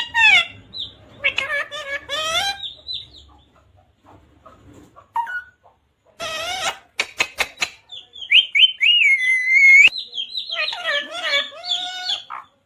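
Pet talking parrot calling: chattering, voice-like calls and whistles, with a harsh screech about six seconds in followed by a few sharp clicks, then a long whistle that dips and rises.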